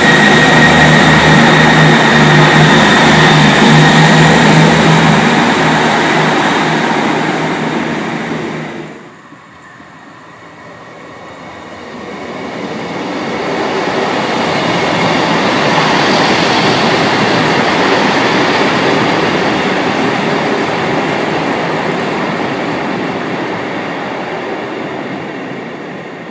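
Diesel multiple-unit trains passing close by. The first runs loud with a steady low engine hum and a high whine, and cuts off suddenly about nine seconds in. A second unit then approaches, grows loud as it passes at about sixteen seconds, and slowly fades as it moves away.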